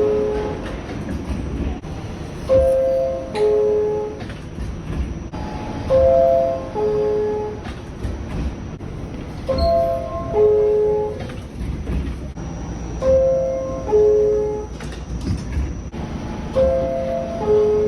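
R46 subway car door chime sounding over and over: a falling two-step ding-dong, repeating about every three and a half seconds, five times, over the low rumble of the train.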